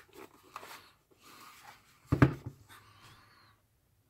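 Handling noise from a plastic soldering station case being turned over on a wooden tabletop: a few light knocks and rubs, the loudest bump about two seconds in.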